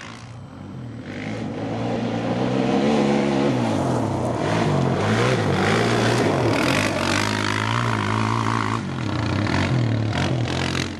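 Arctic Cat DVX 400 quad's single-cylinder four-stroke engine being ridden hard, its pitch repeatedly falling and climbing again as the throttle is cut and reopened through the corners.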